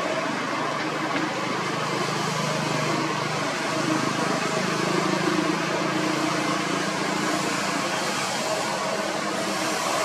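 Kobelco SK200 hydraulic excavator's diesel engine running steadily under working load while it digs and swings round, its note shifting a little in pitch midway through.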